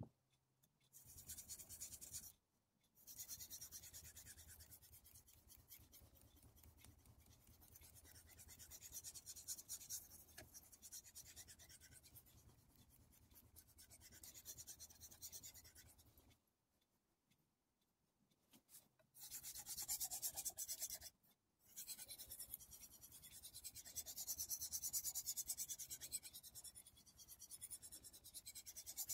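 Kai Shun chef knife's blade stroked rapidly back and forth across a wet King 6000 whetstone, a faint, fast, even scraping as the edge is polished. The strokes stop briefly a few times, with the longest pause from about 16 to 19 seconds in.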